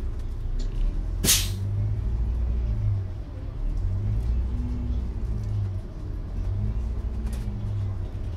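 Iveco Urbanway 12 GNV city bus's natural-gas engine running under way, heard from inside the cabin, its note rising and easing off several times. About a second in comes a short, sharp hiss of released air.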